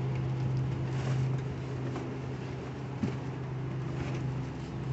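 A steady low mechanical hum from an unseen engine or machine, with light handling noise and a single knock about three seconds in as a push mower is lifted out of its cardboard box.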